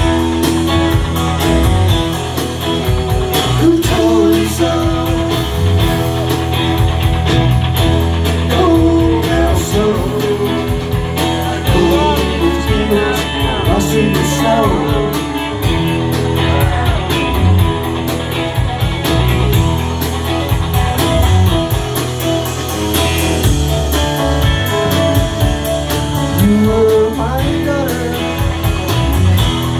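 Live rock band playing electric guitars and bass guitar, with singing at times, heard from the audience floor.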